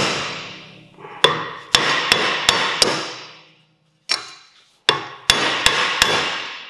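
Hammer striking a steel rear wheel hub: about ten sharp metallic blows in uneven groups, each ringing out and fading.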